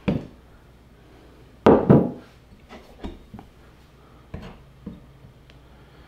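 Scattered knocks and clinks of objects being picked up and set down on a workbench, with two loud knocks close together about two seconds in and several fainter ones after.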